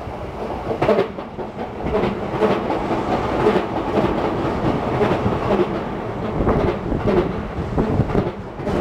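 Sotetsu 11000 series electric train passing close by: a steady rumble of wheels on rails, with repeated clacks from the wheels about once a second.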